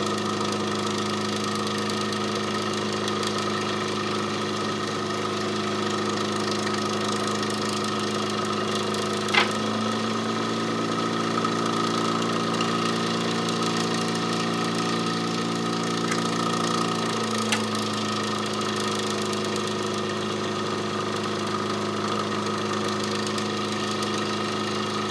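Small electric motor driving a Marinov motor-generator rotor, running with a steady hum. About nine seconds in, an alligator clip clicks as a 3-ohm load resistor is connected to the generator output, and the hum's tone changes under the load. Another click about eight seconds later, and the tone returns as the load comes off.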